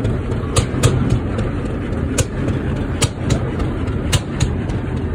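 A 40 hp Reid stationary oilfield engine running: a steady low chugging with sharp clicks at uneven intervals.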